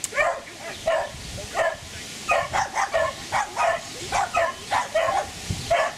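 A dog barking in a quick run of short, high yips, about two or three a second, with a brief pause partway through.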